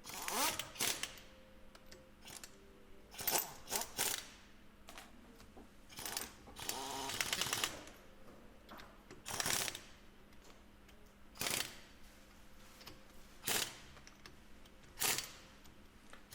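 Trailer wheel lug nuts being tightened with a torque wrench: a series of sharp metallic clicks, with a short rattling stretch in the middle, then single clicks about every two seconds.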